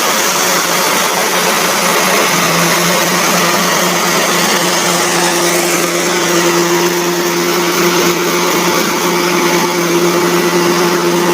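Kubota DC70 combine harvester running at full work: its diesel engine and threshing machinery make a loud, steady mechanical din, with a humming tone that grows stronger about halfway through.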